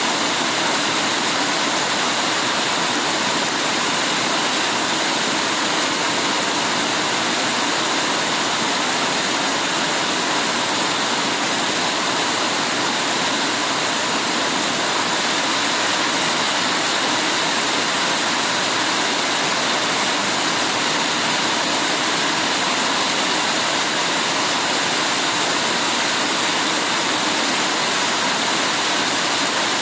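Heavy rain pouring down as a steady, even hiss, with no single drops or gusts standing out.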